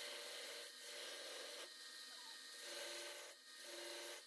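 Belt grinder running faintly, with clamped elk antler handle scales held against the abrasive belt to flatten them. It is a rasping grind in passes that break off briefly about three times.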